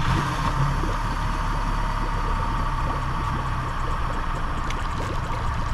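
Yamaha 150 outboard motor just caught on its first start and running at a steady idle.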